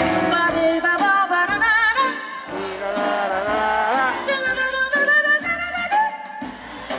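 Female vocalist scat-singing live into a microphone: wordless syllables on quick runs of notes, her voice wavering in vibrato and sliding up and down in pitch.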